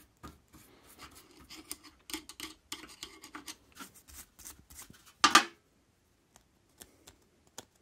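Small brush scrubbing a metal car boot lock barrel in quick scratchy strokes, working off paint overspray. A louder scrape comes a little after five seconds in, followed by a few faint clicks as the lock is handled.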